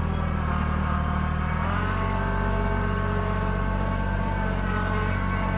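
Kubota BX25D sub-compact tractor's three-cylinder diesel engine running steadily while the tractor pushes snow with its loader-mounted plow. The engine speed steps up slightly about a second and a half in, then holds.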